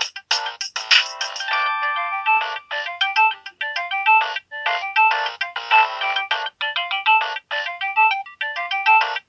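Nokia 7610 mobile phone ringtone playing: a quick synthesized melody of short, separate notes, several sounding together.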